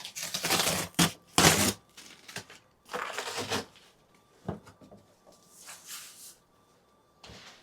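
Cardboard shipping box being opened by hand: packing tape tearing and cardboard flaps scraping and rustling in several short bursts, the loudest about a second and a half in.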